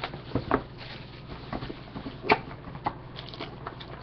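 Football trading cards and a foil pack being handled by hand: light rustling and card-on-card clicks, with a few sharper taps, the loudest about two seconds in.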